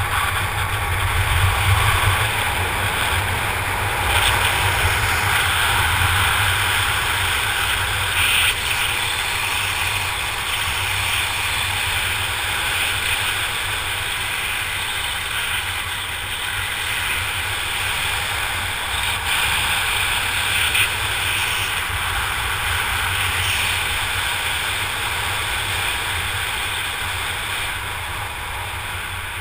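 Wind rushing over the camera microphone during parachute canopy flight: a steady low buffeting and hiss with no let-up.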